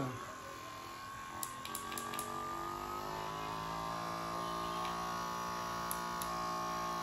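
Caresmith Charge Flex cordless massage gun running, its motor whine rising in pitch over the first few seconds as it is stepped up through its intensity levels, then holding steady. A few light clicks are heard along the way.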